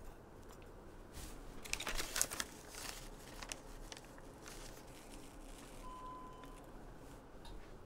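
Plastic zip-top bag crinkling and rustling as it is handled, in a cluster of crackles loudest about two seconds in, then lighter rustles.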